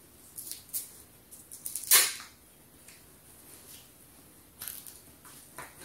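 Fabric Christmas tree skirt rustling as it is unfolded and shaken out by hand: a few short rustles, the loudest a swish about two seconds in.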